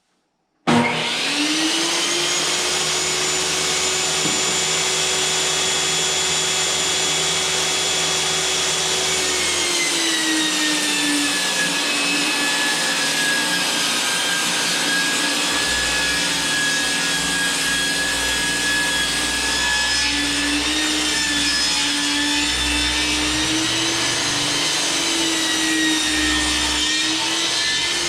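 Table saw motor running up to speed, then bogging to a lower pitch as boards are ripped into 3 3/4-inch strips, and climbing back in pitch near the end as the cut finishes.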